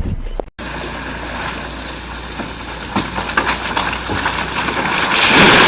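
A heavy machine's engine running steadily, with a few knocks. A loud rushing noise swells up near the end.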